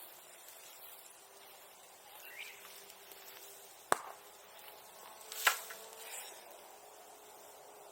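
Bonfire burning old silkworm-rearing tools: a low steady hiss with a few pops, a sharp crack about four seconds in and a second, louder crack a second and a half later.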